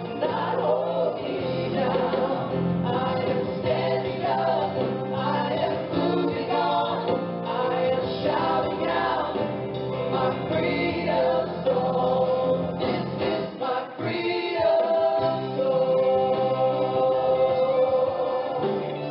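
Background music: choral singing with gospel-style vocals over instrumental accompaniment.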